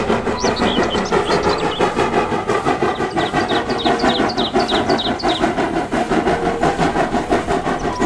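Full-size steam locomotive dressed as Thomas the Tank Engine, working as it pulls passenger coaches, with a quick, even pulsing rhythm.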